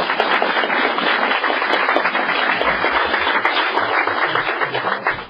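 Audience applauding: many people clapping at once, steady and loud, dying down just before the end.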